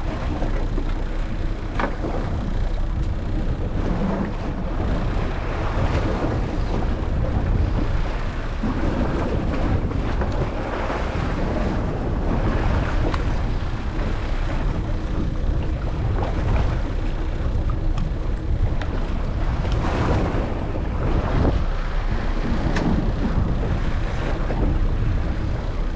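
Strong wind buffeting the microphone over open water, with waves splashing against a boat's hull and the boat's motor running underneath.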